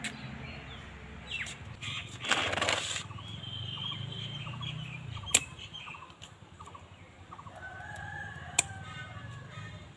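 Chickens clucking and crowing, with a short burst of rustling or flapping about two and a half seconds in. Two sharp snips, one about midway and one near the end, fit pruning shears cutting bougainvillea stems.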